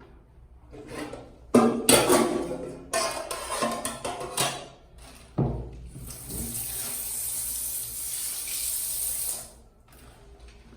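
Clattering and knocking, then a kitchen tap running steadily into the sink for about three and a half seconds before it is turned off.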